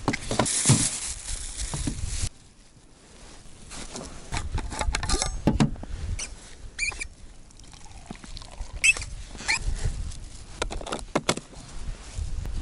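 Picnic handling sounds: a plastic bag rustling for about two seconds, then scattered clicks and knocks of a Stanley vacuum flask and its metal cup, and hot tea being poured into the cup.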